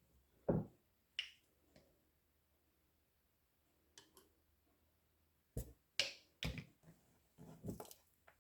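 Scattered short, sharp taps and clicks of kitchen utensils and a bottle being handled while chopped onion is layered in with honey, some in quick pairs and a cluster near the end.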